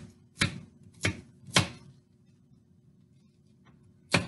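Knife chopping walnuts: four sharp strokes about half a second apart, a pause, then another stroke near the end.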